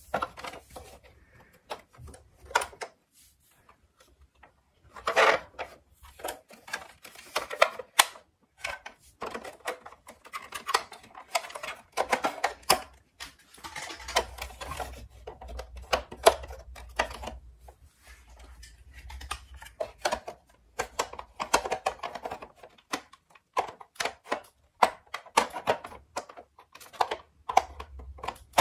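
Plastic toy ambulance handled in a cardboard box: irregular clicks, taps and knocks of hard plastic parts being moved and opened, coming in uneven clusters.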